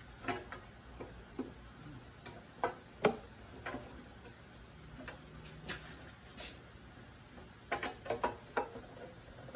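Light, irregular clicks and taps of a Briggs & Stratton lawn mower engine's recoil starter being worked down into place on the engine, with a quick run of clicks near the end.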